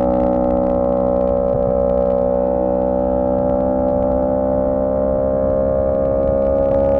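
Honda CB125T's small air-cooled parallel-twin engine running steadily, its pitch rising slowly and evenly as the revs creep up.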